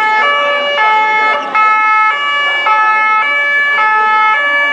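Two-tone emergency vehicle siren sounding loud and close, alternating steadily between a high and a low note about every half second.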